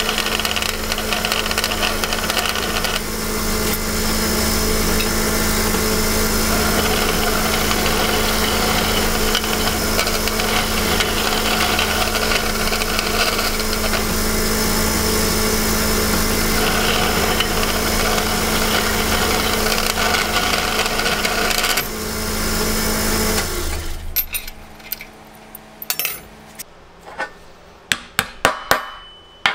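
An electric power tool running steadily under load, with a constant motor hum, switching off about 23 seconds in. A few light clicks and taps follow near the end.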